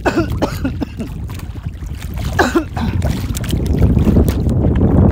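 Wind rumbling on the microphone and choppy water splashing around a small outrigger boat, the rumble growing louder toward the end.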